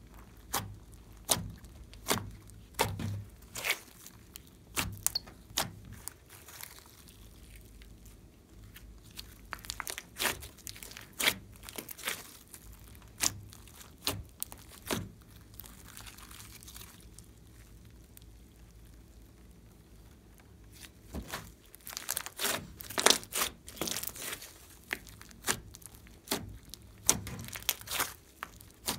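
Hands squeezing, pressing and stretching a large lump of glossy slime, giving irregular sticky clicks, pops and crackles. The clicks come in busy clusters, thin out for a few seconds past the middle, then grow dense again near the end.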